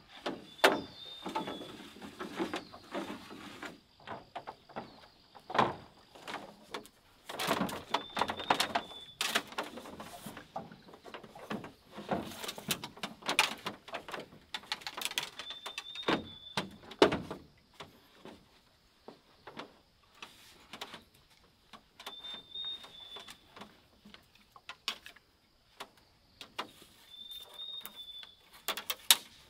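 Bamboo poles knocking and clattering irregularly as they are handled and fitted into a frame. A bird gives a short high call about every six seconds.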